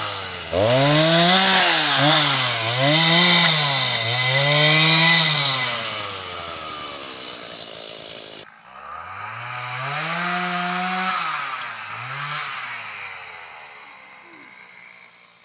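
Two-stroke chainsaw revving up and down through a fallen tree, its pitch surging about four times in the first five seconds and then sinking toward idle. After an abrupt break about halfway, it revs twice more and fades out.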